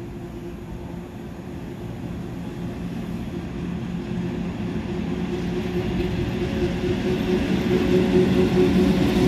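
PKP ET22 electric freight locomotive hauling a train of loaded coal wagons, approaching and drawing level. A steady low hum over a rumble grows steadily louder throughout.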